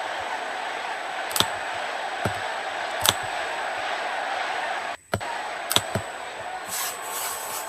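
Steady murmur of an arena crowd from a wrestling broadcast playing back, broken by several sharp clicks and a brief dropout about five seconds in.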